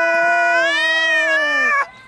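Angry cat yowling: one long, drawn-out caterwaul whose pitch rises a little, then slides down and breaks off near the end.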